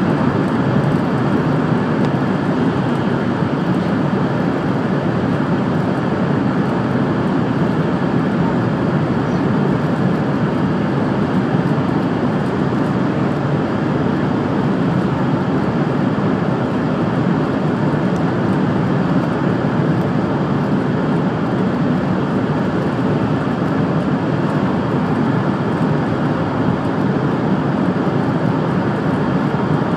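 Steady running noise inside the passenger cabin of a 700 series Rail Star Shinkansen travelling at speed through a tunnel: an even, loud rumble and rush with no changes.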